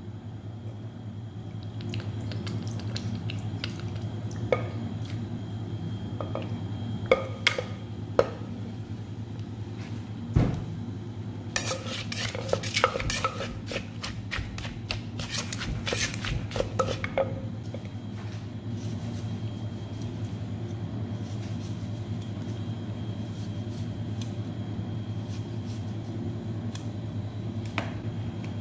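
Wooden pestle knocking and a metal spoon clinking and scraping against the mortar as chilies, tomatoes and lime are bruised and tossed for papaya salad. The knocks come irregularly, with one dull thud and a busy run of clinks about halfway through, over a steady low hum.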